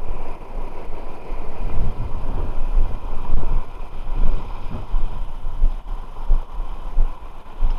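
Wind buffeting the microphone outdoors: an uneven low rumble that swells and dips every second or so.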